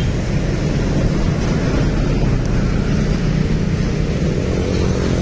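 Steady road-traffic noise from motorcycles and cars passing close by, their engines running in a continuous low drone.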